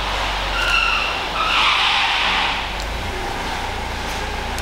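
Workshop noise: a steady low hum with a couple of short high squeals just under a second in, then a brief hissing rush.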